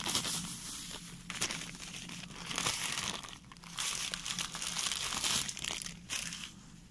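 Plastic bag crinkling as coarse salt pours from it onto pork in a plastic tub: a grainy hiss that comes in uneven spurts, with sharp crackles from the bag.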